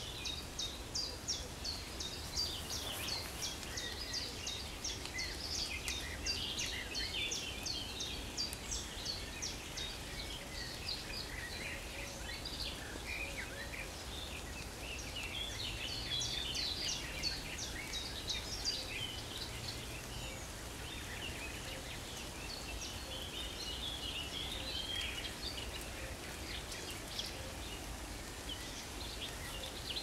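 Several songbirds singing at once in woodland. One bird repeats quick, short, high notes over the first ten seconds or so, while others add denser warbling phrases, strongest about halfway through and again near the end.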